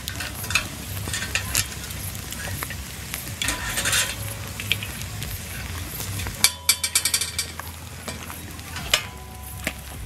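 Two pieces of meat sizzling in a hinged wire grill basket over charcoal embers, with clicks and scrapes of a fork against the meat and the wire. About six and a half seconds in comes a quick rattle of the metal grill basket being handled.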